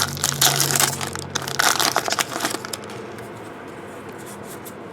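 Trading card pack wrapper crinkling and tearing as a pack is opened, busy for about the first two and a half seconds and then quieter.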